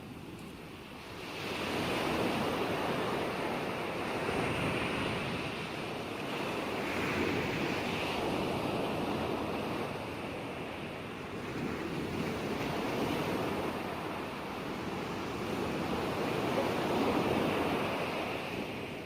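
Ocean waves surging and washing on a shore, a continuous rushing that swells and eases every few seconds; it is softer for the first second before the next wave builds.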